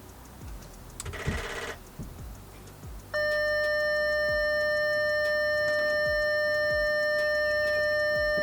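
Faint regular clicking, a short buzz about a second in, then from about three seconds in a steady, unbroken electronic warning tone from the Audi A4 as its battery is reconnected after the steering wheel and airbag swap.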